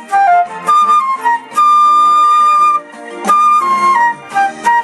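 Solo flute melody, mostly short notes stepping downward, with one long held note about a second and a half in.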